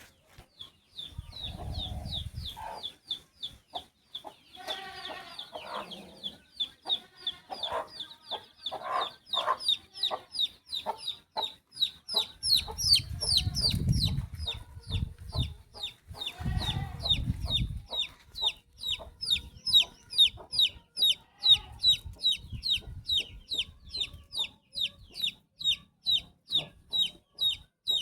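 A chick peeping: short, high, downward-sliding peeps repeated about three times a second, with some lower calls mixed in during the first third. Low rumbling noise comes and goes a few times.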